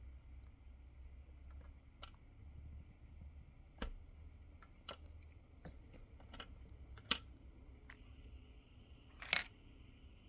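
Wiring connectors and hand tools being handled at close range: scattered small, sharp clicks and snaps about once a second, then a short, louder crunch near the end, over a low steady hum.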